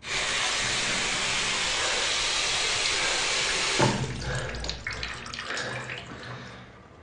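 Running water, like a tap turned on full, starting suddenly and holding steady; about four seconds in there is a thud, after which the flow turns uneven and dies down.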